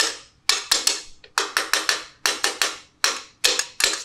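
Hammer blows on a metal drift held against a gearbox shaft in a Minsk 125's aluminium crankcase, driving in a part that would not go in by hand. The taps are sharp and ringing, about four a second in uneven clusters.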